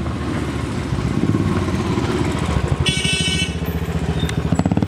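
Motorcycle engine running at low revs as the bike rolls slowly in, with a steady, even beat of firing pulses that grows louder about a second in. A short high-pitched beep sounds about three seconds in.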